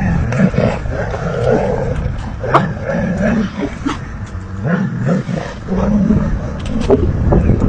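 Caucasian shepherd dog and wolves growling and snarling in a tug-of-war over a carcass, with deep growls coming in irregular bursts about once a second.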